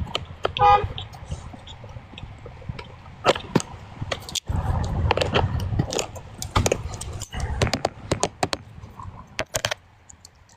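A metal tool scraping and tapping at a corroded battery terminal and cable clamp, an irregular run of clicks and scrapes as the buildup is scraped away to expose bare metal. A short horn-like beep sounds about a second in.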